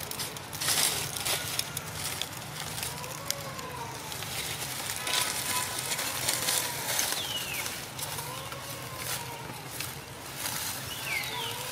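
Newborn macaque giving thin, arched coo calls every couple of seconds, with a couple of short, high, falling squeaks. Dry leaves crackle and rustle as the monkeys move and handle them.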